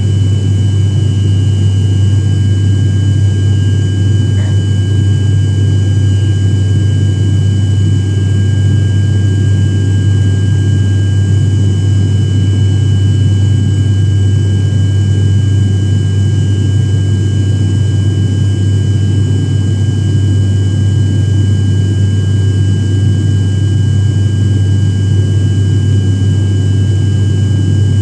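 Aircraft cabin noise in flight: a loud, steady low drone of the engines with a thin, constant high whine above it.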